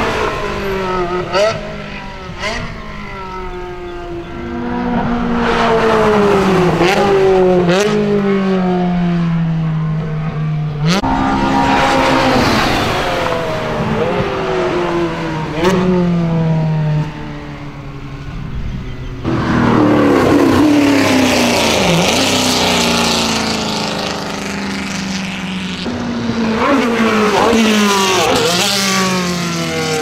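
Ferrari sports car engines revving hard as the cars pass one after another on a racing circuit. Each pitch climbs through a gear and drops sharply at the shift, swelling and fading with each pass.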